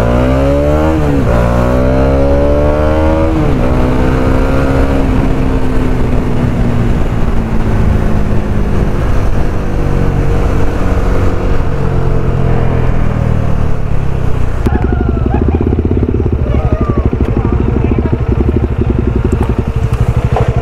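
Motorcycle engine pulling away, its pitch climbing with a couple of gear changes in the first few seconds, then falling slowly as the bike slows. For the last six seconds it runs low and steady, as at idle.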